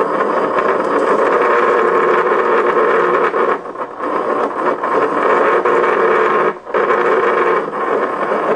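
Microwave oven transformer buzzing loudly while its high-voltage secondary is shorted to ground through a hand-held metal rod, arcing. The buzz breaks off briefly twice, a little under four seconds in and again near seven seconds.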